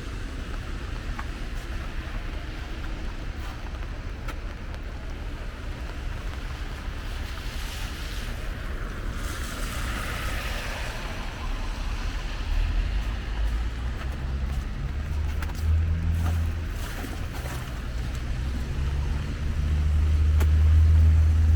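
City traffic on a wet, slushy street: the hiss of a car's tyres swelling and fading as it passes, then a vehicle's low engine rumble that builds to its loudest near the end.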